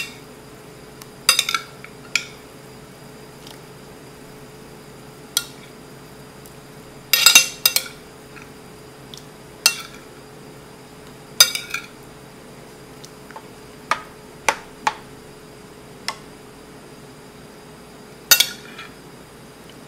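A metal spoon clinking against a ceramic plate and the pot as cubes of tofu are pushed off the plate into the broth. The clinks come sharp and separate, one every second or two, with a quick run of several about seven seconds in.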